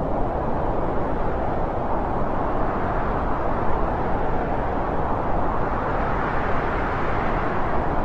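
Wind blowing steadily, a low rushing noise that swells and eases gently.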